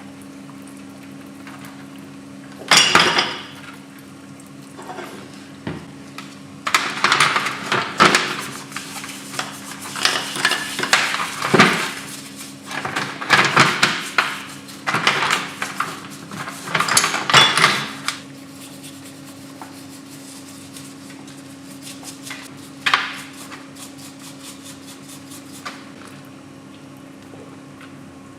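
Metal engine parts and hand tools clinking, clanking and scraping while being handled, in a dense run through the middle with single bursts near the start and near the end, over a steady low machine hum.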